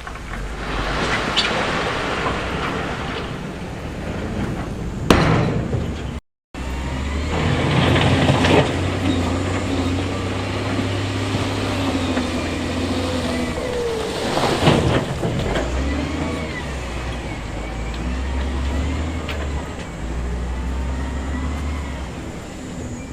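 Heavy diesel equipment running steadily, with surges of loose stone rushing and clattering several times and a sharp knock about five seconds in. The sound drops out briefly just after six seconds.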